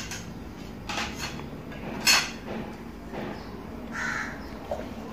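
A bird cawing a few times in short, harsh calls, with the loudest call about two seconds in.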